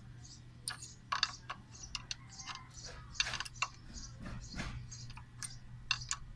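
Light, irregular metallic clicks and ticks, several a second, of an adjustable wrench gripping and turning the temperature sender's nut as it is tightened into the thermostat housing, over a steady low hum.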